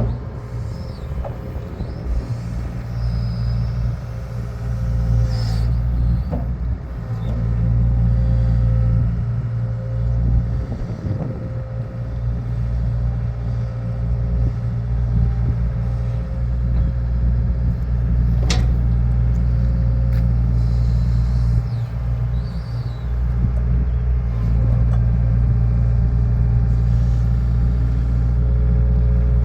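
Low, steady engine rumble with a constant hum over it, broken by a few sharp knocks, the clearest about eighteen seconds in.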